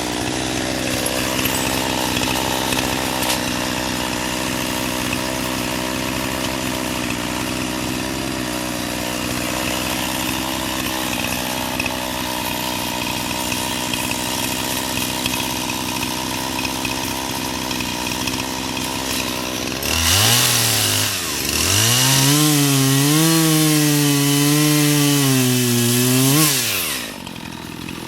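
Gas chainsaw running steadily, then revved to full throttle about two-thirds of the way in. Its pitch wavers up and down for about seven seconds as it cuts, then it falls back near the end.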